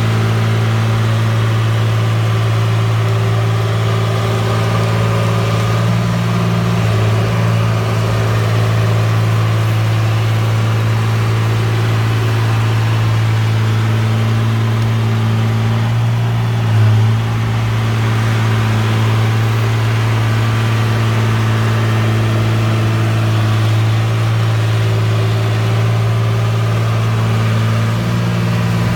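Caterpillar D3C bulldozer's diesel engine running steadily, with a brief surge in level about seventeen seconds in.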